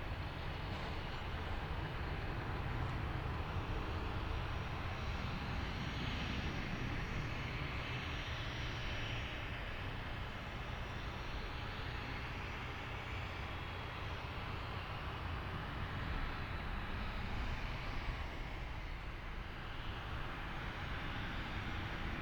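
Dassault Falcon 8X business jet's three turbofan engines running: a steady jet rumble with a faint high whine.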